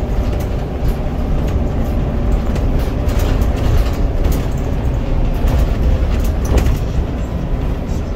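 Scania N94UD double-decker bus running, heard from inside the lower deck: a steady low rumble from its Scania DC9 9-litre diesel and the road, with a faint engine and driveline whine and scattered rattles and clicks from the body and fittings.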